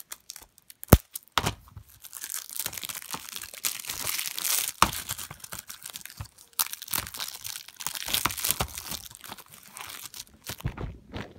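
Clear plastic shrink-wrap being pulled off DVD cases and crumpled in the hand, a dense crinkling crackle, with a few sharp clicks from the plastic cases being handled.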